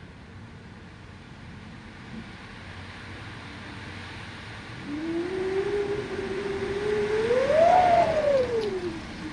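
Winter wind moaning: a rush of wind that slowly grows louder. About five seconds in, a single moaning tone comes in, rises in pitch to a peak around eight seconds, then falls away near the end.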